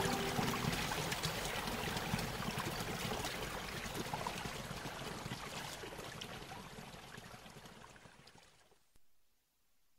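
Running stream water, a steady babbling rush that fades out slowly to near silence. The last held notes of the background music die away in the first half second.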